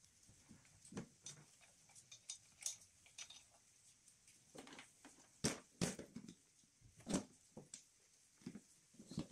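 Faint, irregular clicks, rustles and light knocks of gloved hands handling hoses and plastic fittings in a car's engine bay. A few sharper knocks come about halfway through.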